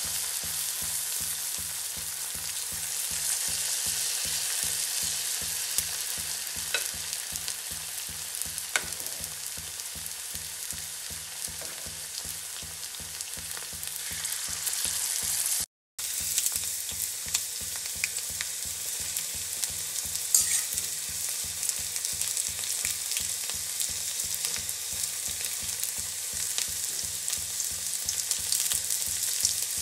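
Batter-coated chicken pakkavada deep-frying in hot oil in an iron kadai: a steady crackling sizzle, with a few light clicks of a spoon and slotted spatula against the pan. The sound cuts out for a split second about halfway through.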